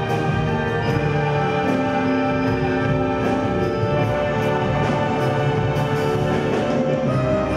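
Live children's orchestra with grand piano playing long, held chords that change every second or two.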